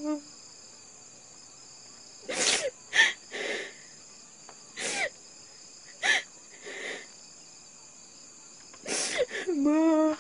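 A person's short, sharp breathy gasps, about nine in irregular bunches, ending near the end in a brief voiced moan. A steady high insect chirring runs beneath.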